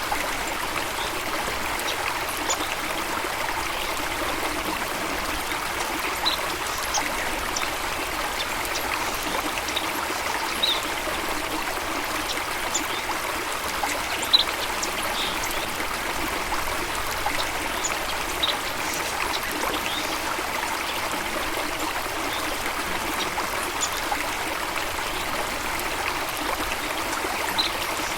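Steady running water of a stream, splashing and trickling evenly, with a scattering of brief, faint high-pitched ticks.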